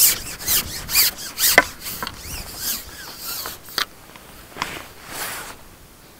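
Carbon fishing pole being drawn back hand over hand, sliding and rubbing against the angler's hands and sleeves in a run of short rasping swishes about two a second. The swishes thin out and grow fainter after about four seconds.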